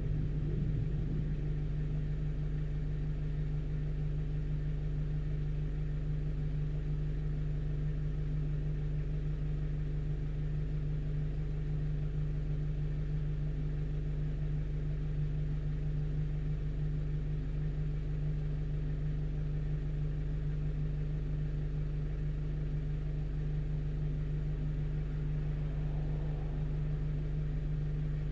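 A 1-ton truck's engine running steadily, a constant low hum that holds the same pitch throughout.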